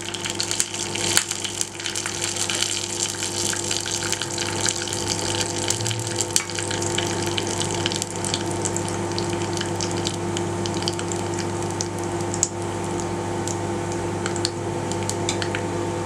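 Mustard and cumin seeds sizzling in hot oil for a tempering: a steady frying hiss with many small crackling pops. A steady low hum runs underneath.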